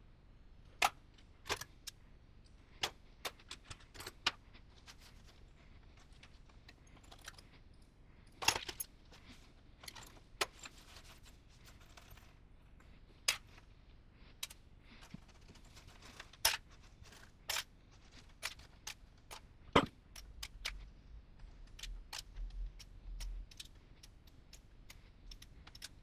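Small metal parts and components clicking and clinking as they are picked apart by hand and set down or dropped, in irregular sharp clicks with louder knocks about eight and twenty seconds in.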